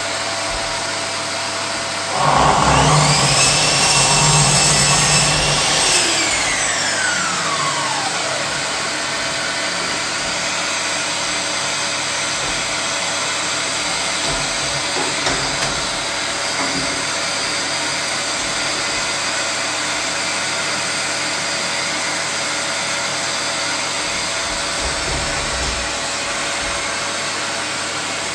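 Metabo KGS 216 M 1200 W sliding mitre saw switched on about two seconds in: its motor spins up quickly to a steady high whine, runs for about four seconds, then is switched off and winds down in a falling whine. A dust extractor runs steadily throughout.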